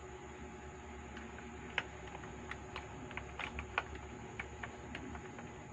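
A magnetic screwdriver and small screws clicking and ticking against the plastic hull and gearbox of an RC tank as a replacement gear motor is screwed in. Irregular small sharp clicks begin about two seconds in, over a faint steady hum.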